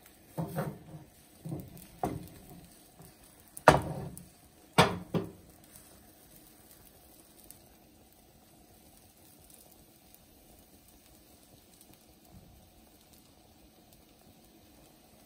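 Five knocks and bumps of a wooden rolling pin against a granite-coated pan as thin lavash dough is unrolled onto it, the two loudest about four and five seconds in. After that only a faint steady hiss as the dough cooks on the hot dry pan.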